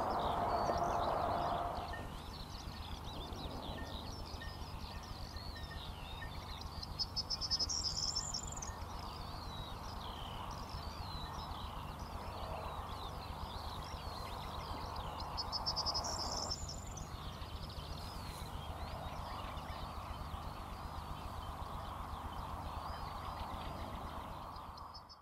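Several small birds singing, with many overlapping warbled phrases. One bright, quick trill comes back about every eight seconds, over a steady background rush.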